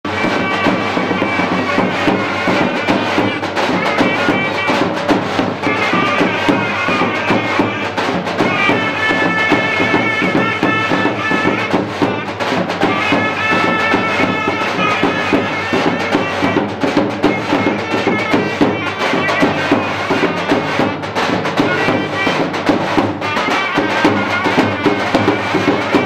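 Davul and zurna playing a lively folk dance tune: a shrill, reedy melody over steady drum beats.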